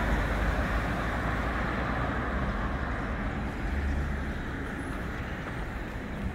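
City street traffic: a steady low rumble of passing cars, easing off slightly toward the end.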